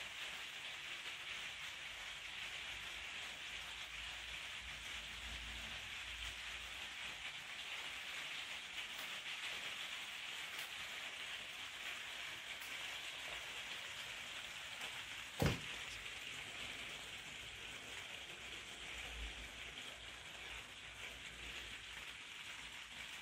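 Steady patter of rain, heard from inside a glazed conservatory. A single sharp tap comes about fifteen seconds in.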